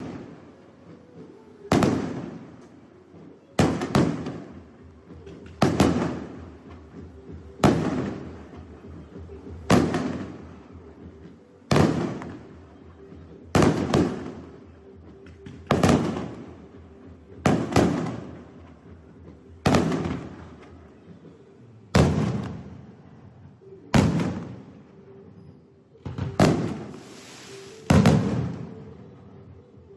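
Fireworks shells bursting one at a time, a sharp bang about every two seconds, each followed by a rumbling echo that dies away before the next.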